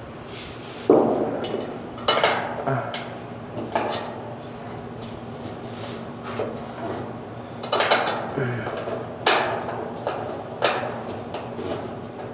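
Irregular metallic clanks and clinks, about half a dozen, from bolts and hand tools being handled against the truck's metal while working underneath it, over a steady low hum.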